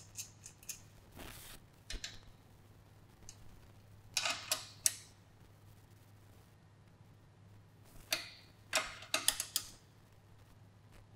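Combination wrenches, 12 mm and 14 mm, clicking and clinking against a jam nut and bolt as the nut is tightened on a motorcycle chain adjuster: short clusters of faint metal ticks, a few near the start, about four seconds in and again near nine seconds, over a steady low hum.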